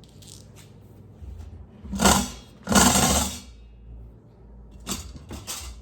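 Rustling and scraping of packaging being handled: two long, loud rustles about two and three seconds in, then three short ones near the end.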